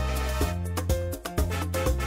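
Background music with a steady beat of percussion and bass.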